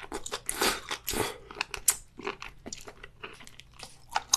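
Close-miked mouth sounds of a person biting and chewing seafood: a run of wet, crunchy clicks, with a longer, louder crunch about a second in.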